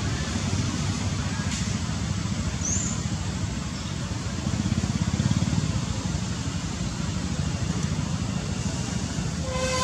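Steady low rumble of nearby road traffic, with a short vehicle horn toot near the end.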